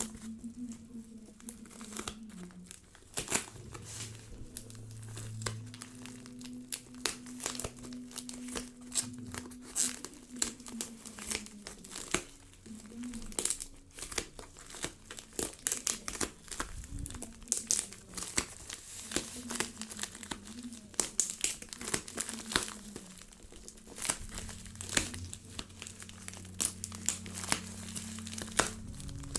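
Packaging being crinkled and torn open by hand, a dense run of sharp irregular crackles throughout.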